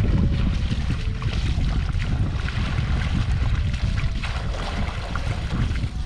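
Wind rumbling on the microphone, with irregular splashing and sloshing of shallow water as a woven basket is plunged and worked through it.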